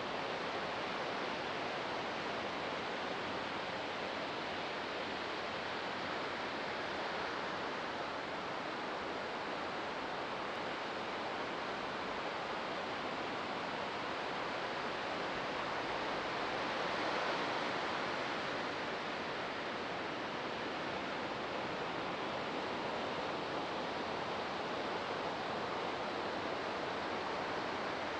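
Ocean waves breaking and washing ashore: a steady rushing surf, swelling briefly louder a little past the middle.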